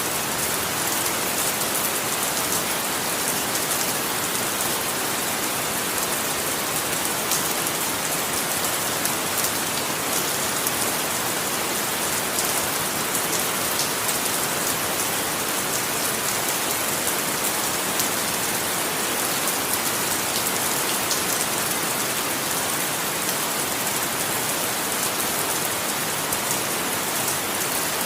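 Steady rain falling, a continuous even hiss with fine scattered drop patter and no thunder.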